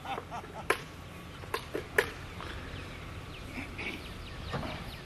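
Outdoor background noise with a few sharp clicks in the first couple of seconds and faint bird chirps around the middle.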